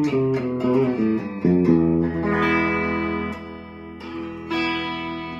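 Vester VE-700 semi-hollow electric guitar being played: a quick run of single picked notes, then a chord struck about a second and a half in and left to ring and fade, and another chord struck a few seconds later.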